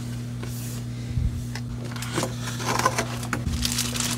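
Unboxing handling noise: a cardboard box and card being moved, then the keyboard lifted out in its plastic wrap, which crinkles and rustles with small clicks and knocks in the second half. A steady low hum runs underneath.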